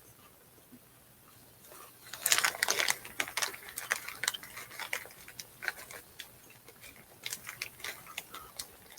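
Crunching and chewing of puffed corn cheese-ball snacks: a run of irregular crisp crackles that starts about two seconds in and goes on, loudest at first.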